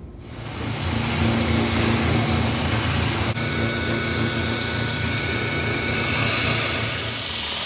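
A motor-driven workshop machine coming up to speed over about a second, then running steadily with a hissing whir over a low hum.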